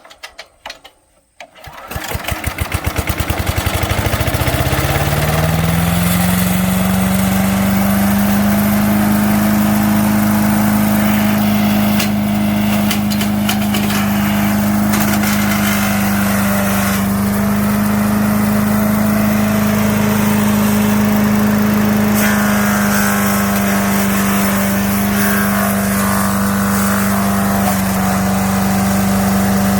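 The 5 HP engine of an MTD wood chipper/shredder starting about two seconds in and climbing in pitch over a few seconds to a steady, loud running speed. It runs on a freshly installed carburettor kit.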